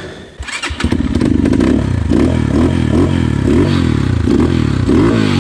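Single-cylinder four-stroke engine of a GPX FSE 250 enduro dirt bike: after a brief clatter it comes in about a second in and is revved up and down over and over, the rider working the throttle while stuck in creek mud.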